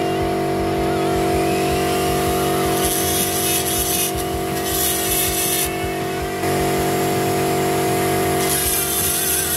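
Rotary tool running at a steady high speed while its bit grinds the cast-iron valve guide boss in a cylinder head's exhaust port. A hiss comes in about three spells as the bit bites the iron: roughly three seconds in, again about a second later, and near the end.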